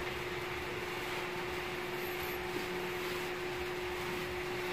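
Steady hum and hiss of a wall-mounted room air conditioner running, with one constant low tone.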